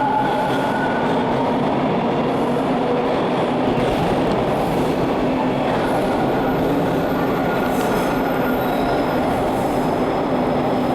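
Subway train running between stations, heard from inside the car: a loud, steady rumble of wheels on the track with thin, high squealing tones over it.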